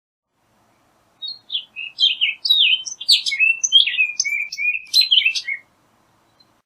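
Orchard oriole singing one rapid, jumbled phrase of varied whistled and slurred notes, lasting about four and a half seconds.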